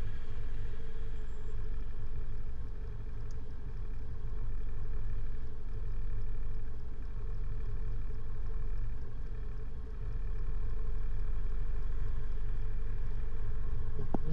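Vehicle engine idling with a steady, even low hum.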